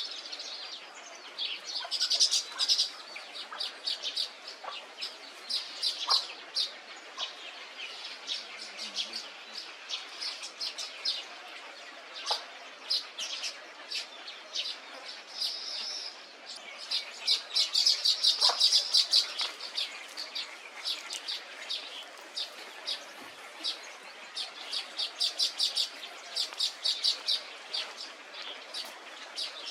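Many birds calling together in a dense chorus of rapid, high chirps, with a few lower single calls mixed in.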